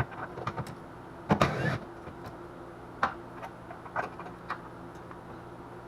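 Clicks and knocks of hand tools and engine parts being handled during an engine teardown, with a short louder rattle about a second and a half in, over a steady low hum.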